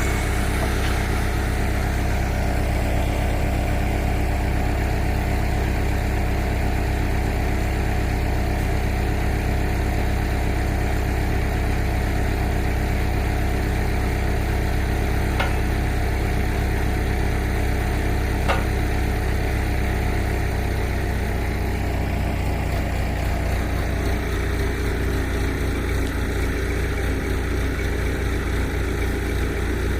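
Backhoe engine idling steadily, its note shifting slightly about two-thirds of the way through. Two short sharp clicks come around the middle, about three seconds apart.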